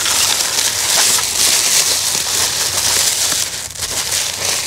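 Plastic bags crinkling and crackling continuously as wrapped food is handled and unwrapped.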